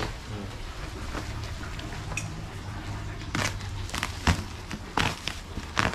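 Several sharp knocks and bumps in the second half, over a steady low hum.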